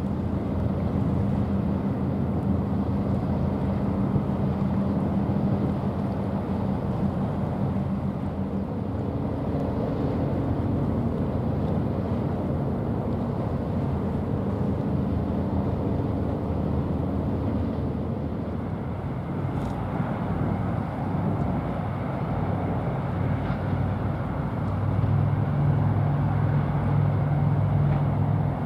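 Steady low drone of a passing container ship's engine over wind and water noise, its hum shifting in pitch a couple of times.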